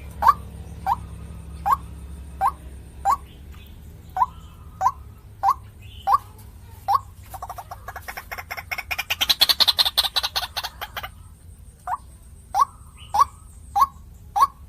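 White-breasted waterhen (ruak-ruak) calling, a short sharp note repeated over and over about every two-thirds of a second. About halfway through, the notes give way to a fast rattling chatter lasting some three seconds, then the repeated notes start again.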